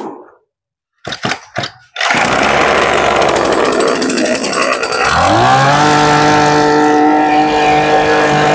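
Mitsubishi T140 two-stroke brush-cutter engine being pull-started. A few short pulls of the recoil starter come about a second in, and it catches at about two seconds and runs loud and ragged. About five seconds in, its pitch rises and it settles into a steady, even run.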